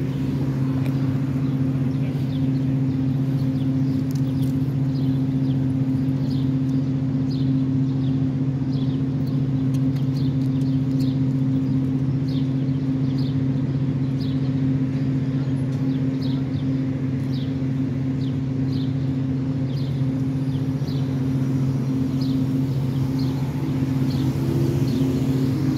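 Steady low hum of an idling engine, with short high chirps like a small bird repeating about once a second; a car drives past near the end.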